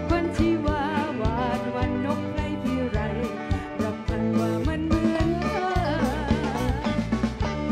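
Live band music: a woman singing a melody with a wavering vibrato, backed by a drum kit and the band's instruments.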